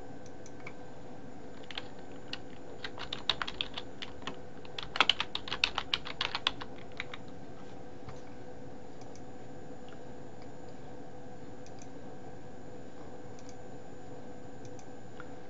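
Typing on a computer keyboard: two quick runs of keystrokes between about two and seven seconds in, then only a few isolated clicks.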